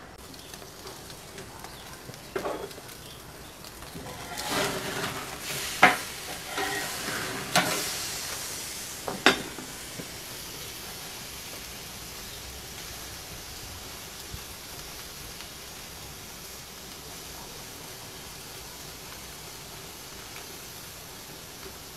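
Wagyu steaks sizzling steadily on the hot grate of a Weber grill at about 250 °C. In the first ten seconds there are several sharp clinks and knocks, some briefly ringing.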